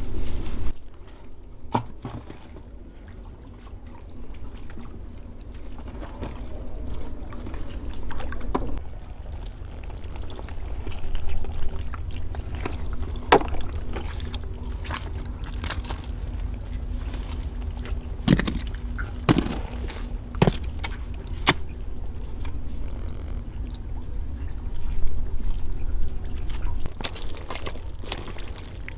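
Water sloshing and splashing over a steady low rumble, with several sharp knocks through the middle.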